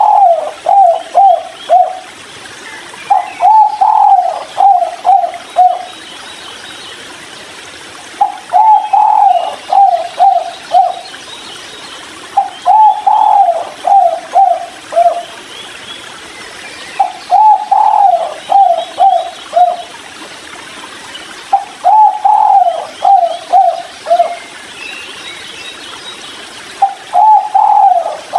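Spotted dove (tekukur) cooing its song over and over: each phrase is five or six coos, the first the loudest and longest and the rest shorter and dropping away, repeated about every four to five seconds. Faint chirps of small birds sound in the background.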